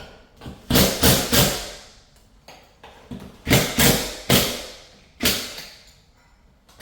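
Hard knocks on the ceiling fan's mounting bracket as it is driven up into place, each ringing briefly. Three come about a second in and four more follow over the next two seconds.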